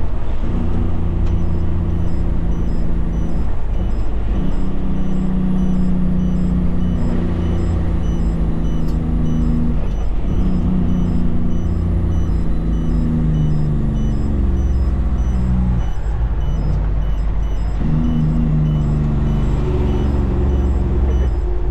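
Kenworth prime mover's diesel engine, heard from inside the cab, pulling a loaded road train up through the gears. The engine note climbs, then breaks off and drops at each gear change, several times, a few seconds apart.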